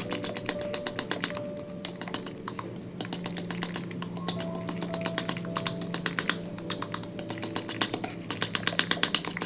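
Metal fork beating egg and mashed banana in a ceramic bowl: rapid clicking taps of the fork against the bowl, several a second, with a few brief pauses.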